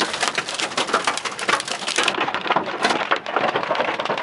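Nickel-size hail and heavy rain hitting a car's body and glass: a dense, rapid patter of hits that thins for about a second midway, then comes back hard.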